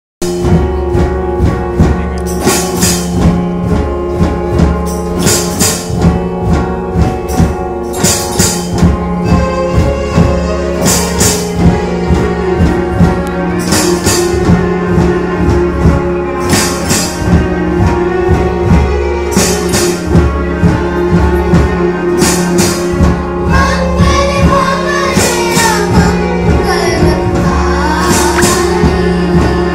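Live ensemble music played by a children's band: drums, tablas, acoustic guitars and electronic keyboards, with a group singing. A steady beat carries it, with a bright jingling accent about every second and a half, and the singing comes forward near the end.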